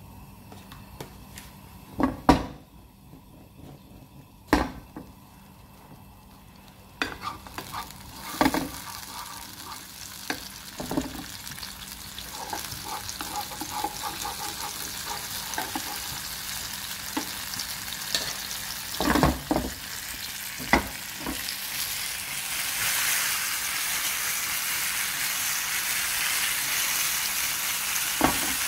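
Tomato frying in hot oil in a nonstick pan while a spoon stirs it, with scattered sharp knocks of the spoon against the pan. The sizzle starts about seven seconds in and grows louder over the second half.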